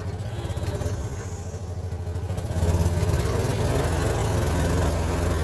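Side-by-side utility vehicle's engine running as it drives along a dirt track, a steady low hum that gets louder about halfway through.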